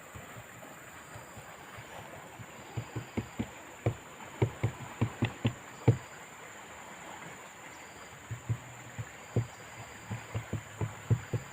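Irregular light knocks and taps in two runs, one starting a few seconds in and the other near the end, from hand work on a fibreglass boat being repaired.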